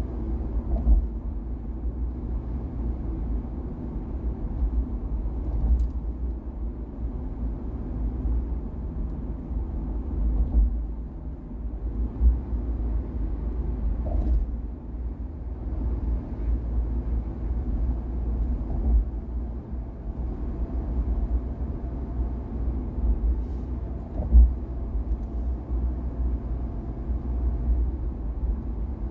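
Car driving on a city road: a steady low rumble of tyres and engine, with a few brief louder thumps, about a second in, around the middle and again near the end.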